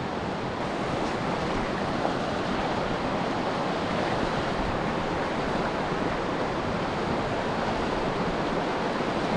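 Steady rush of river water, growing slightly louder over the first few seconds.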